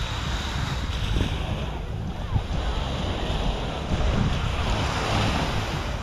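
Small surf breaking and washing up a sandy beach, swelling about a second in and again around four to five seconds, with wind rumbling on the microphone throughout.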